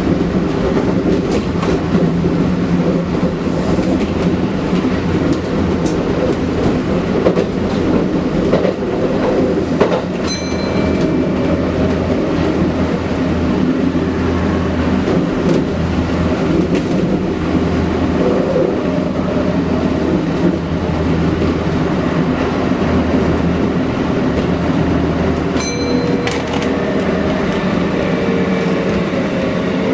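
Kintetsu 1252 series electric train running at speed: a steady rumble of wheels on rail with a low hum, and a couple of sharp clacks over rail joints. Near the end a steady whine comes in.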